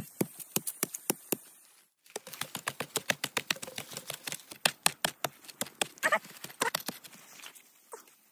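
A machete blade chopping into a bamboo shoot and the soil and roots at its base in quick, regular strikes, about five or six a second, with a brief break about two seconds in.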